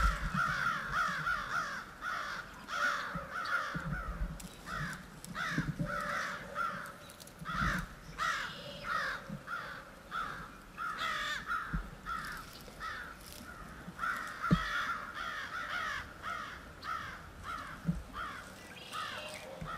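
Several crows cawing over and over, their calls overlapping, stirred up by a rabbit distress call. A few faint low knocks come in between.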